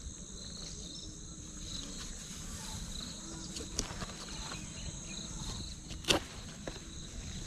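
Field insects chirring steadily at a high pitch. A few faint clicks come through, with one sharper snap about six seconds in as an okra pod is cut from its stem.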